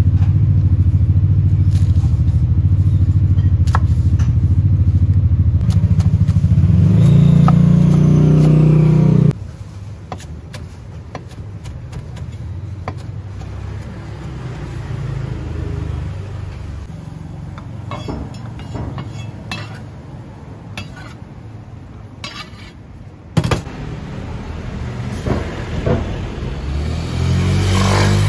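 A motor engine runs loudly with a low steady hum, rises in pitch, then cuts off abruptly about nine seconds in. After that, quieter background with scattered knife taps on a wooden cutting board as spring onions are chopped.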